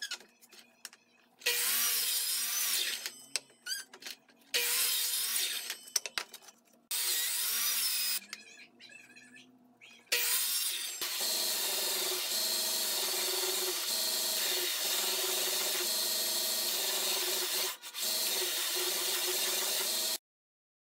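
Power miter saw cutting pine boards, three short cuts, followed by a power sander running steadily for about ten seconds with one brief dropout near the end.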